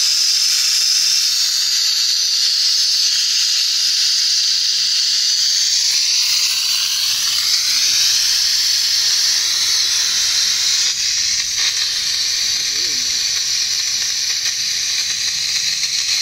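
Gas rushing through a hose into a large plastic balloon as it inflates: a loud, steady hiss that rises slightly in pitch about six seconds in.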